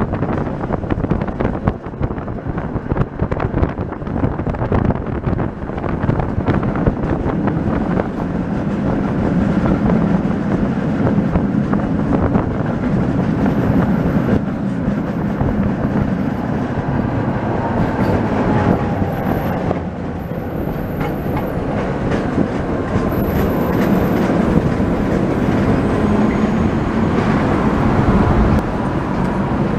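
Tram running on its rails, heard from inside the car: a steady rumble of wheels and running gear with many small knocks.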